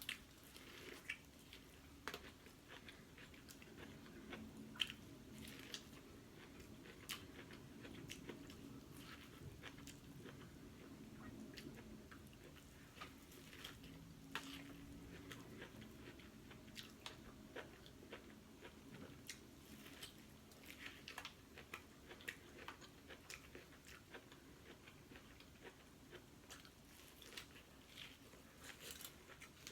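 Faint chewing and mouth sounds of a person eating seafood, with many small scattered wet clicks and smacks.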